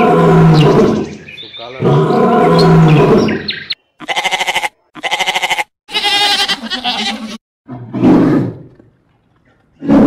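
A run of different animal calls cut one after another. A lion roars twice in long, loud calls. Then a goat bleats several times with a quavering voice, and more short calls follow near the end.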